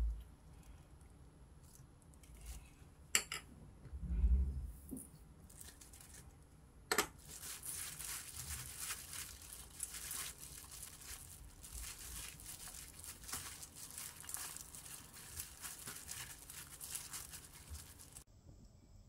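A plastic-gloved hand tossing and squeezing seasoned shepherd's purse greens in a stainless steel bowl: the crinkling rustle of the glove and the wet greens. A few knocks and a low bump come first, then a dense, steady rustle that stops suddenly near the end.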